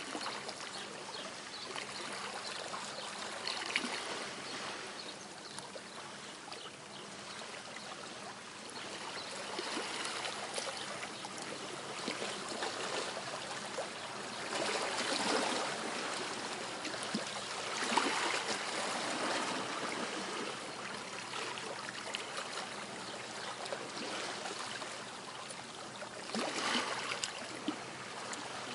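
Small waves washing and trickling on a quiet shore: a steady wash of water that swells every few seconds as each wave comes in.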